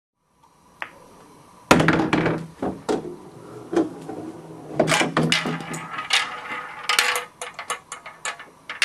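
A ball rolling and clattering down a plastic marble-run track and through K'Nex pieces: an irregular string of clicks, knocks and rattles starting a little under two seconds in.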